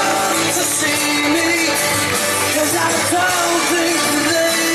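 Pop song with a sung vocal playing loudly and steadily.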